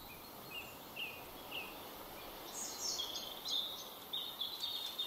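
Forest ambience: small birds chirping over a soft steady hiss. A few single chirps come in the first second and a half, then a quicker run of higher notes from about halfway.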